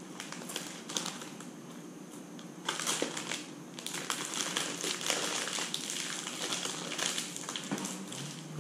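Clear plastic food bag crinkling as it is handled, with crunchy chewing of fried food. The crinkling grows louder and busier a few seconds in.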